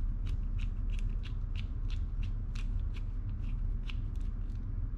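Precision screwdriver turning a small screw into the side plate of a baitcasting reel, with a light click at each twist, about three a second, until the screw is snug near the end. A steady low hum runs underneath.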